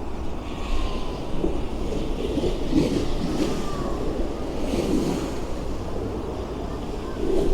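Sea waves surging and washing against the stone steps of a sea wall, in repeated swells over a steady low rumble.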